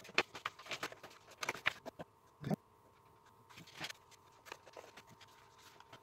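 Sheet of printed paper rustling and crinkling, with light taps and scrapes, as it is handled and folded around a chipboard notebook cover. The sounds come thick and fast for the first two seconds, then turn sparse and scattered.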